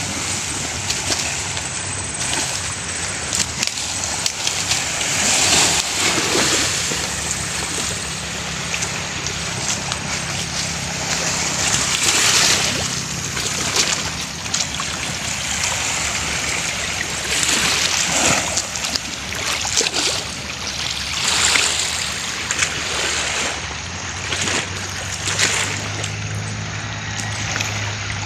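Small waves lapping and washing onto a pebble beach, swelling louder every few seconds as each wave breaks.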